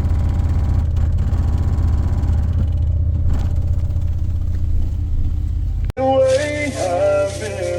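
Car-audio subwoofers, a set of Sparked Innovations Bass Blaster 2000s, playing loud deep bass at low power, under 300 watts. About six seconds in the bass cuts out abruptly and a track with a melody starts.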